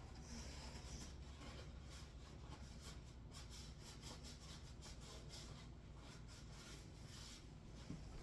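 Near silence: quiet room tone with a low hum and a few faint rustles.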